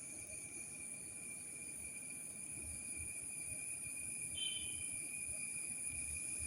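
Forest insects chirring in a steady, unbroken high-pitched drone, with a brief higher note about four and a half seconds in.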